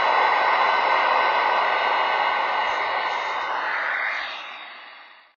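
Elmac PMR-6A receiver's audio between transmissions: a steady hiss of 40-meter band static with a few faint steady tones on top. It fades out over the last second or so.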